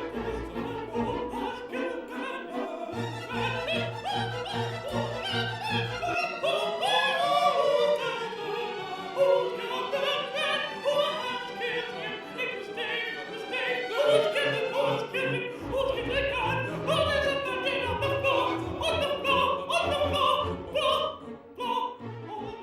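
Operatic classical music: a voice singing over an orchestra, with low sustained notes underneath.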